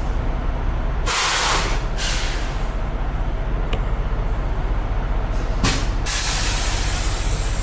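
Semi truck's engine and road noise droning steadily inside the cab, with a burst of hiss about a second in, a shorter one near six seconds, and a steadier hiss after it.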